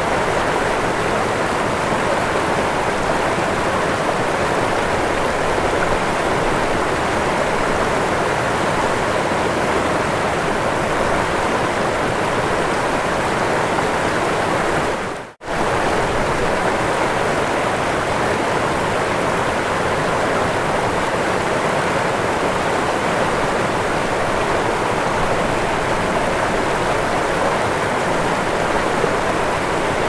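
Mountain river rushing and splashing over rocks in small waterfalls, a steady even rush of water. The sound drops out for a split second about halfway through.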